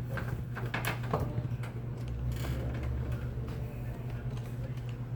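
Scattered sharp clicks of computer keyboard keys being pressed, a cluster in the first second and a few more later, over a steady low hum.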